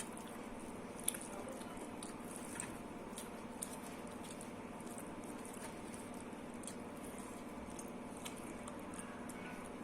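Soft, wet chewing and mouth sounds of someone eating dal and rice, with scattered small clicks over a steady low background hum.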